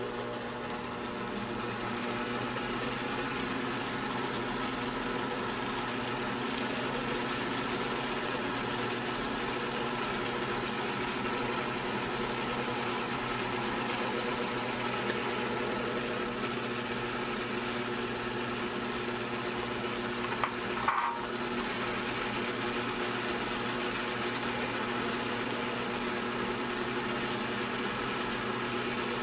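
Sunbeam MixMaster Heritage Series stand mixer running steadily, its 350-watt motor humming as the twin standard beaters churn thick creamed butter-and-sugar cookie batter in a stainless steel bowl. One brief knock about two-thirds of the way through.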